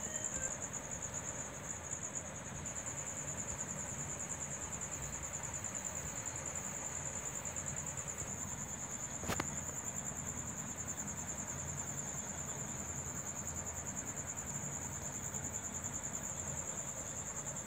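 Crickets chirping in a steady, high, fast-pulsing trill, with one sharp click about nine seconds in.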